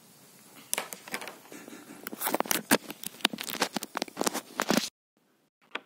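Close-up handling noise: a hand touches and rubs against the camera near its microphone, giving a dense run of irregular clicks and taps. The sound cuts off suddenly near the end.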